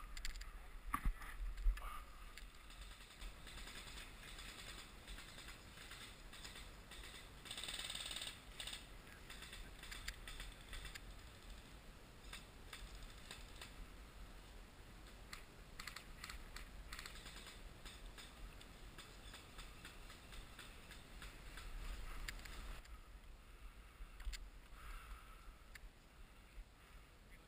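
Faint, irregular small clicks and rustling, with a cluster of sharper clicks about a second in, over a low rumble of wind or handling on the microphone.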